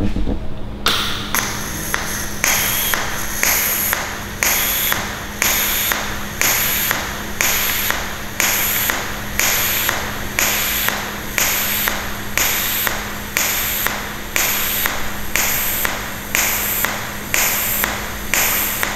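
Pulsed TIG welding arc from an EWM Picotig welder. About a second in it starts flaring up and dropping back in a steady rhythm, about three pulses every two seconds, as the pulse program switches between a high-current pulse and a low background current.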